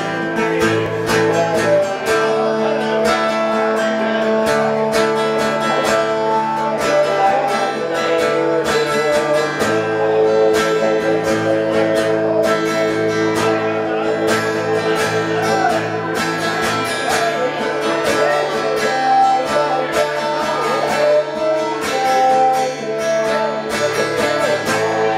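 Two acoustic guitars playing an instrumental passage together, steady strummed and picked chords that change every few seconds.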